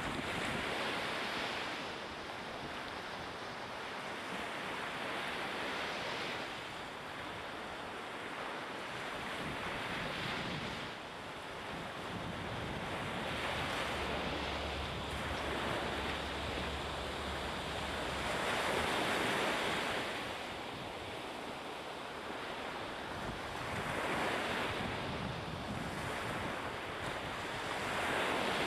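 Wind and harbour water: a steady rushing noise that swells and fades every four to five seconds.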